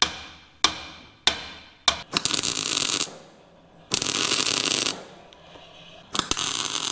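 Hammer tapping a steel angle bar back into position: four sharp ringing strikes about two-thirds of a second apart. Then three crackling bursts of MIG welding, each about a second long, as the angle is tack-welded to the steel floor.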